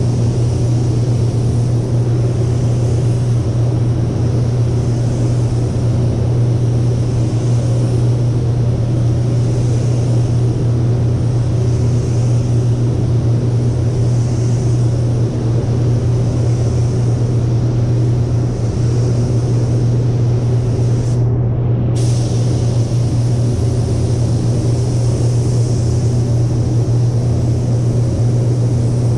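Paint booth's ventilation running with a steady deep hum, while the spray gun's hiss of air and paint swells and fades every couple of seconds as pass after pass is sprayed along the car's side.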